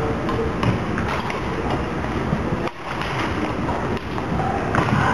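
Busy badminton hall ambience: a steady hubbub of background noise with a few sharp taps of shuttlecocks struck on the courts.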